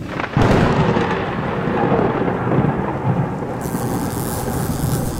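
Thunder sound effect: a sudden crack followed by a rolling rumble, with a rain-like hiss coming in about two-thirds of the way through.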